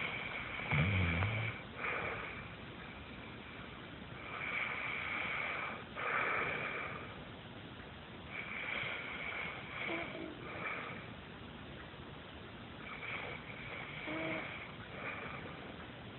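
A sleeping woman snoring, a raspy snore on her breaths every few seconds, with a louder, deeper snort about a second in.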